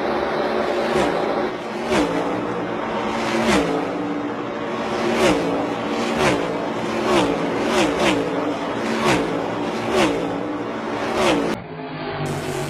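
NASCAR Next Gen stock cars' V8 engines racing past one after another, about one pass a second, each a loud peak whose pitch drops away, over the steady sound of the pack. Near the end the sound changes abruptly to a duller, steadier engine noise.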